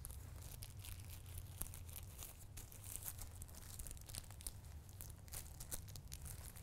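Thin clear plastic protective sleeve crinkling faintly as a microneedling pen is slid into it and worked down by gloved hands, with many small irregular crackles.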